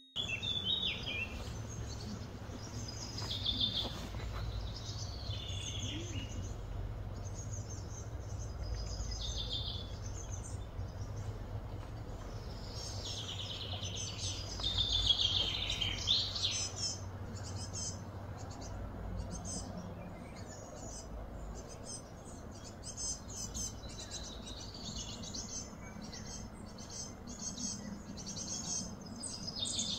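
Outdoor ambience of small birds chirping and calling on and off, with a burst of louder, busier calls about halfway through, over a steady low rumble.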